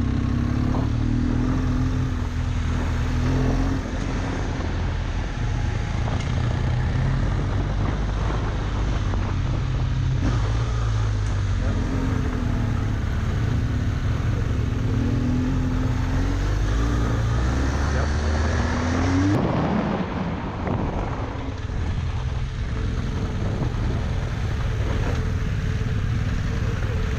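BMW R1200GS boxer-twin motorcycle engine running under way on a dirt trail, with steady wind and tyre noise. About 19 seconds in the engine note climbs as the throttle opens, then drops away.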